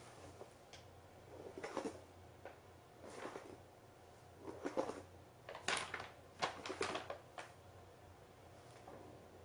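Paper McDonald's bag crinkling and rustling in irregular bursts as a cat wriggles around inside it, loudest a little past halfway through.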